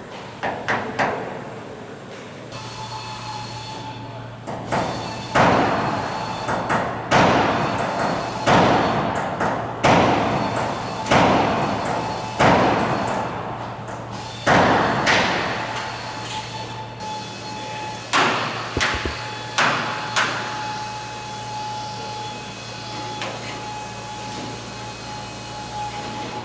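Hammer blows on metal in aircraft restoration work, one about every second and a half, each ringing on in a large echoing hall. The blows thin out in the second half. A steady machine hum with a faint whine sets in early.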